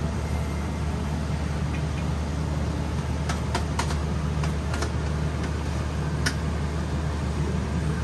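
Taiyaki making: a run of short, sharp clicks and taps from metal tools and cast-iron fish molds as batter is ladled into the molds, over a steady low hum.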